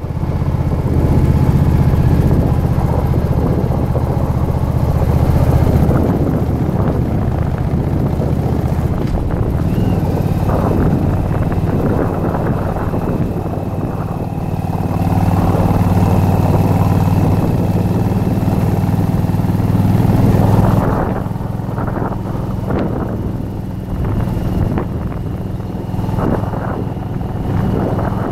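Yamaha Virago XV1100's V-twin engine running on the move, its note rising and falling with the throttle and easing off about twenty seconds in.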